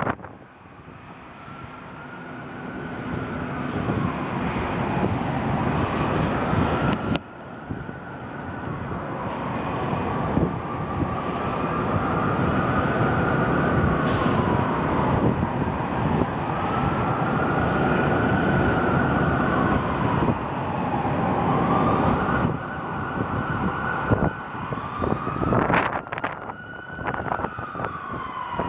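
Emergency vehicle sirens wailing in slow rises and falls, two or more overlapping in the second half, over wind rumbling on the microphone.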